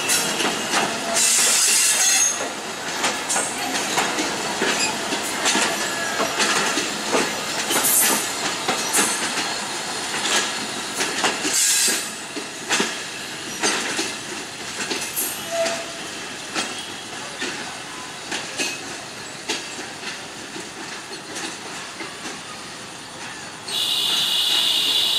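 Betna Express passenger coaches rolling past and drawing away, wheels clicking over the rail joints with short high wheel squeals now and then, the sound growing fainter. Near the end a loud high steady sound lasts about two seconds.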